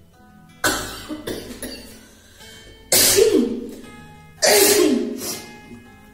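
A woman sneezing hard three times. Each sneeze is a sudden loud burst followed by smaller bursts and a short falling voiced tail, over soft acoustic guitar background music.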